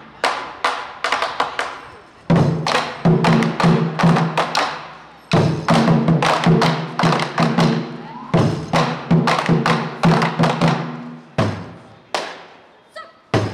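Taiko drums struck in short, rapid phrases about every three seconds. Each phrase ends with the drums left to ring and die away before the next begins.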